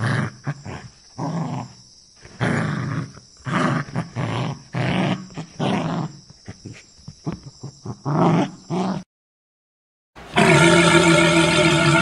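Spotted hyena calling: a long run of short, irregular calls with brief gaps, which stops abruptly about nine seconds in. After a second of silence, a walrus gives one long, steady, pitched call near the end.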